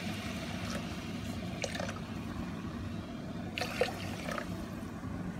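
Water poured from a bowl into a pressure cooker pot of fried moong dal and masala, a steady splashing pour, with a couple of light knocks near the middle.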